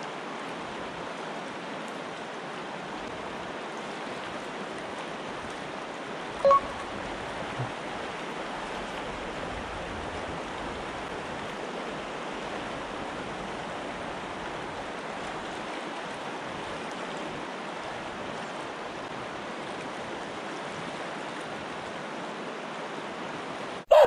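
A mountain river swollen with snowmelt rushing steadily, an even hiss of fast water. About six and a half seconds in, a brief high blip rises above the water.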